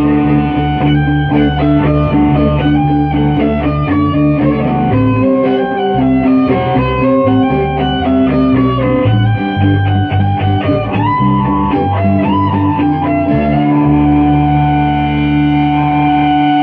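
Instrumental break of a rock song: electric guitar playing a melodic lead over sustained chords and bass.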